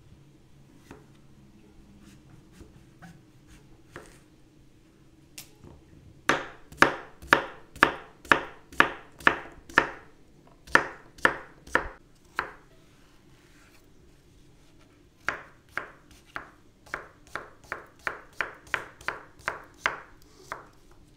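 Chef's knife chopping zucchini on a bamboo cutting board: a few light cuts, then from about six seconds in a run of sharp knocks about two a second, a short pause, and a second run that quickens to about three a second.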